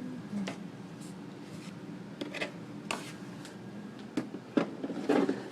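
Handling noises from a reptile enclosure: several sharp knocks and clicks and a short scraping rub, the loudest knock about four and a half seconds in.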